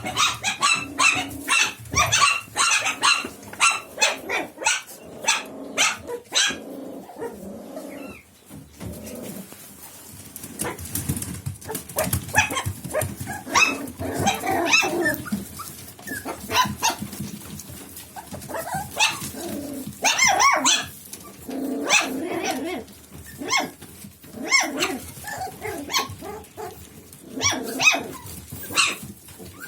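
A dog barking again and again, in fast runs of barks for the first several seconds, then in bouts with short pauses between them.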